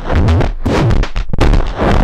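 Harsh noise music: loud, distorted electronic noise with a heavy low rumble, chopped into blocks that cut out and restart every half second or so.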